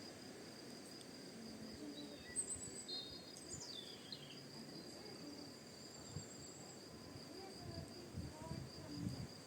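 Faint, steady high trill of crickets, with a short bird call sweeping down in pitch about three seconds in.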